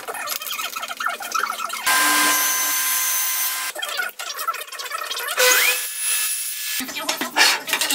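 Handling clatter at a Festool table saw, broken by two short stretches of a steady motor run. The second one starts with a quickly rising whine. Each run starts and stops abruptly.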